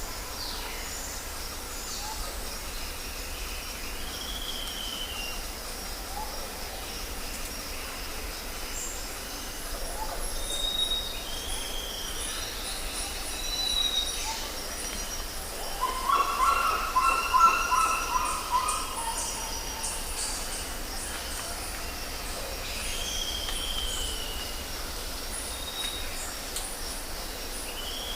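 Jungle ambience: a steady high chorus of insects under repeated whistled bird calls, with one short arched whistle recurring every several seconds. The loudest call comes about two-thirds of the way in, lower and fuller than the whistles.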